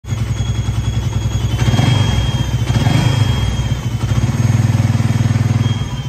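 Suzuki Raider/Satria FI 150 single-cylinder engine running, with a thin, steady, high-pitched chirping squeal like a cricket from the lower engine case. The mechanic suspects a failed water pump seal, with the pump's impeller fouled by deposits from mixed coolants.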